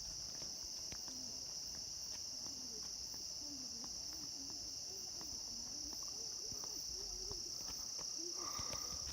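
Tropical forest insect chorus: a steady, unbroken high-pitched drone, with a second, lower buzzing joining near the end.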